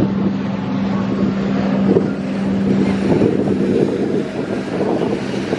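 Wind rushing across the microphone over the steady hum of a moving vehicle's engine. The hum drops out about halfway through, leaving the wind and road noise.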